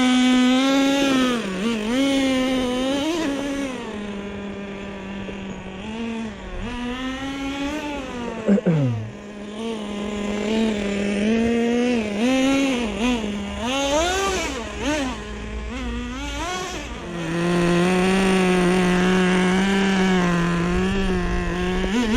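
Traxxas T-Maxx nitro RC truck's small two-stroke glow engine revving up and down in quick blips as it is driven. About eight and a half seconds in, the pitch drops sharply. For the last few seconds it settles to a steady, lower idle, which the driver takes to be tuned a little too rich.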